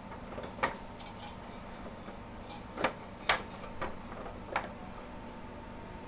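A handful of short, sharp clicks and taps at irregular intervals, about five in all, the loudest a little over three seconds in, over a faint steady hum.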